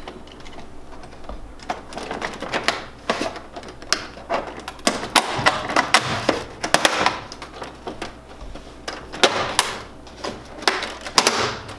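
Plastic panels and latches of a Kyocera copier's scanner unit clicking, knocking and rattling as it is pried loose and lifted by hand, in irregular bursts that come thickest in the middle and near the end.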